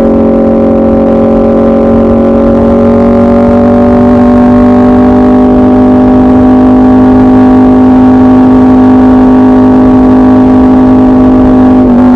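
Aprilia RSV4 RF's V4 engine through a de-catted SC-Project CRT exhaust, very loud and held at high engine speed. Its pitch rises slightly a few seconds in and then stays steady.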